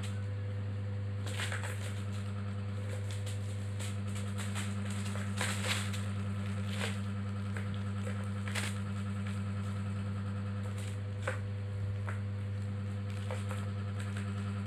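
A steady low hum with scattered soft clicks and rustles as a kitten bats the plastic balls around a ball-track cat toy and shifts on a plastic sheet.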